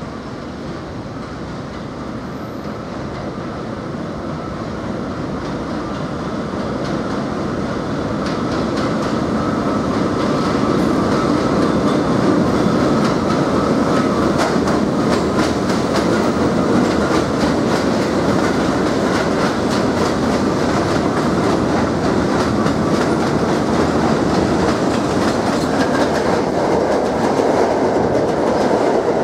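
An R42 subway train runs through an elevated station without stopping. It grows steadily louder over the first ten seconds as it approaches, then holds a loud, steady run with rapid clickety-clack of its wheels over the rail joints as the cars pass close by.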